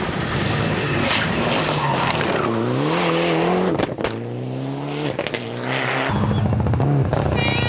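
Mitsubishi Lancer Evolution rally car's turbocharged four-cylinder engine at full throttle on a stage, the revs climbing, dropping sharply about four seconds in at a gear change or lift, then climbing again.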